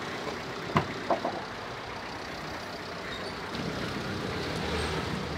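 Motor vehicle noise: a steady engine and road hum, with two short sharp knocks about a second in and a low engine drone growing near the end.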